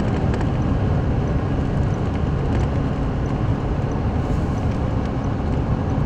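Steady low rumble of a vehicle's engine and road noise heard from inside the cab.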